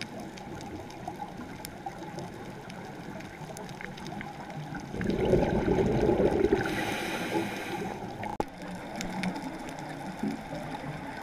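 Underwater sound heard through a diving camera's housing: a steady low water rush with faint scattered clicks. About five seconds in, a scuba diver's exhaled breath bubbles out of the regulator with a loud rush for about three seconds. A sharp click comes near the end of the bubbling.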